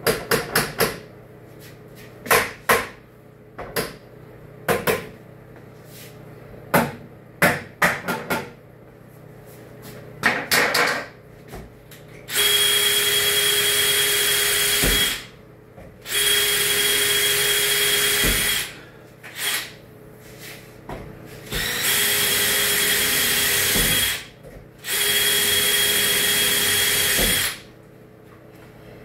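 A cordless drill running in four steady runs of two to three seconds each, starting about halfway through. Before that, a string of short sharp knocks and clanks.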